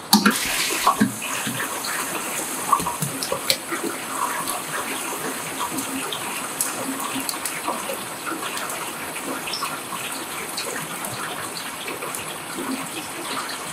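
A basket of frozen chips going into a commercial deep-fat fryer: the hot oil sizzles and bubbles in a steady hiss with scattered pops and crackles, easing slightly toward the end.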